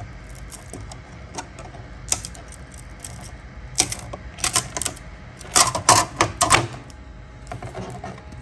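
Large 3D-printed part popping and crackling loose from a flexible build plate as the plate is flexed: a series of sharp clicks and snaps, densest in two clusters about four and six seconds in.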